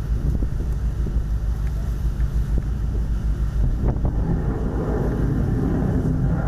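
Wind buffeting the microphone over a steady low rumble, with no distinct blast or change in level.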